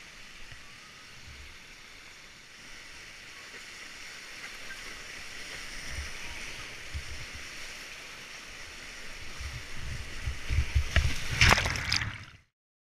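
Whitewater rapids rushing steadily around a packraft, with paddle splashes and dull low bumps that grow busier in the last few seconds. A loud splash of water comes over the bow near the end, and then the sound cuts off abruptly.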